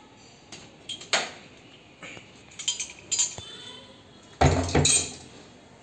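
Metal clinks of a copper-pipe flaring tool's bar and yoke being handled: a few light clinks, then a louder clatter with a thump a little after four seconds in.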